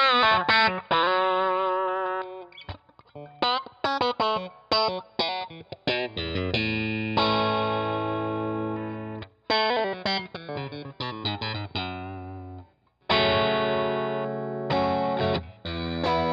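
Fesley ST electric guitar played through overdrive: single notes bent and shaken with vibrato, then chords left ringing, with short breaks between phrases.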